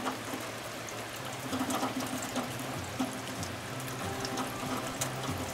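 Steady rushing water noise with fine crackle throughout, over soft background music holding low sustained notes that shift every second or so.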